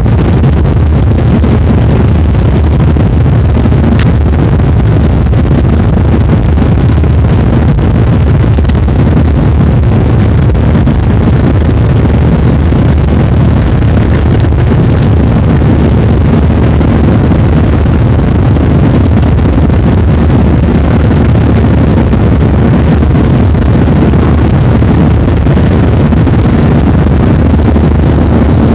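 Airplane noise: a loud, steady low rumble of engines and rushing air that holds constant throughout.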